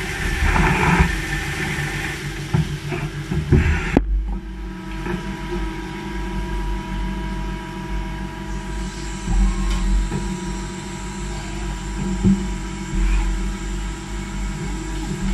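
Machining equipment running: a steady mechanical hum with several held tones, a low rumble and occasional clicks and knocks. The sound changes abruptly about four seconds in, from a noisier clattering mix to a smoother hum.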